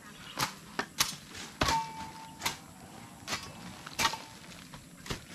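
Hoes chopping into soil: uneven thuds about every half second to a second. About a second and a half in, one strike leaves a short metallic ring from the blade.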